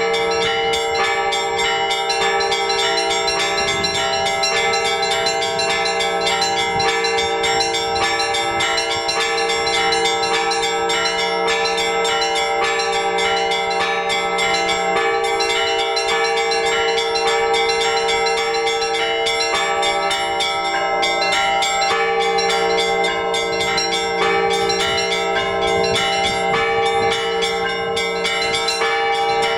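Orthodox church bells rung together in a continuous peal: many bells sound at once, the smaller ones struck in quick repeated strokes over the steady ringing of the larger ones.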